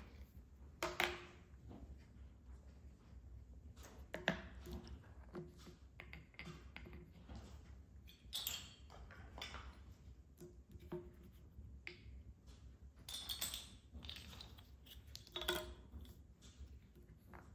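Wooden base-ten blocks (hundred flats and ten longs) set down one after another on a paper mat over a hard tabletop: scattered knocks and light clinks, the loudest about a second in and around four seconds in.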